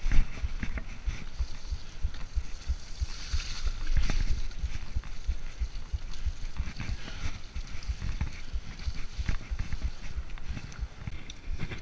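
Mountain bike riding fast down a wet, muddy dirt trail: the tyres hiss and slosh over the mud while the bike and camera rattle with constant knocks and thumps from the bumps.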